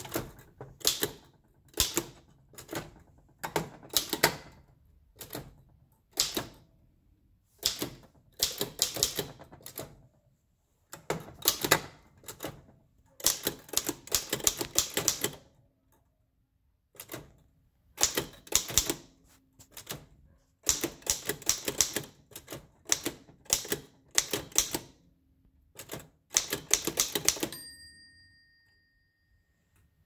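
Oliver No. 5 typewriter being typed on: rapid bursts of clacking keystrokes as its typebars strike the platen, broken by short pauses. Near the end a bell rings once and fades, the margin bell warning that the line is nearly full.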